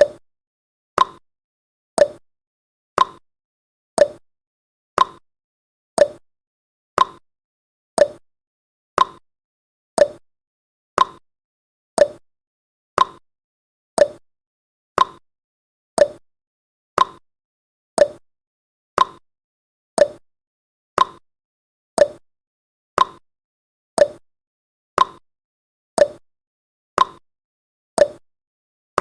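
Countdown timer's ticking sound effect: one short, sharp tick every second with silence between.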